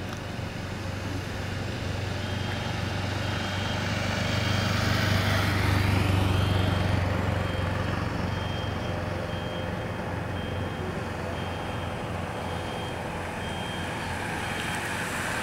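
A motorcycle riding ahead of a bicycle race pack passes by, its engine hum swelling to a peak about six seconds in and then easing off. A high beeping repeats about twice a second through most of it.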